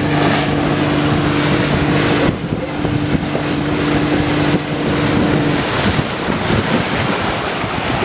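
Motorboat engine running with a steady drone over rushing water and wind buffeting the microphone. The engine note drops away about two-thirds of the way through, leaving the wind and the hiss of the boat's wash.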